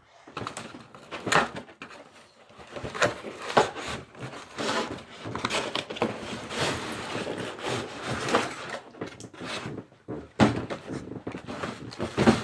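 A cardboard toy box and its packaging being handled and opened: irregular knocks, clicks and rustling.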